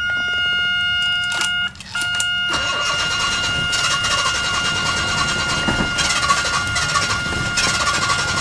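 The starter cranks the Jaguar XJ6's fuel-injected 4.2-litre DOHC XK inline-six over and over, with a steady pulsing churn from about two and a half seconds in. The engine is slow to fire, and pumping the accelerator does not help. A steady high electronic tone sounds throughout, dropping out briefly just before the cranking begins.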